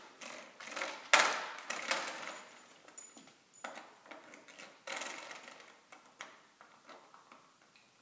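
A spring door stop twanged over and over by a puppy, a run of sharp strikes that each ring briefly. The loudest twang comes about a second in, and the strikes get fewer and fainter after about six seconds.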